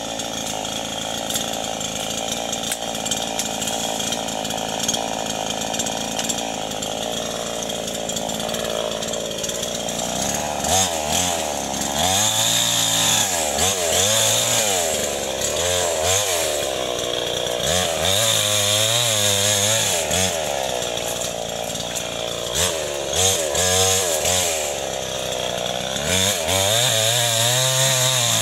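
Osaka two-stroke chainsaw running steadily. From about ten seconds in it is revved again and again as it cuts through oil palm frond bases, its pitch rising and falling with each cut.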